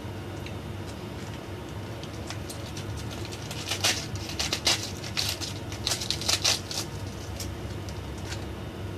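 Raw cabbage leaves torn apart by hand: a run of crisp snapping and crackling tears, loudest in the middle few seconds.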